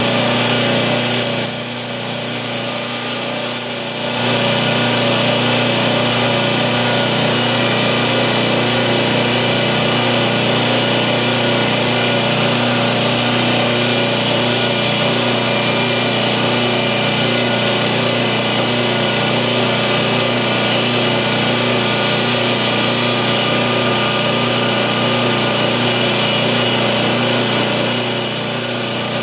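Electric belt grinder running steadily while a steel knife blade's edge is ground against the belt to take out a nick, a continuous motor hum under a grinding hiss.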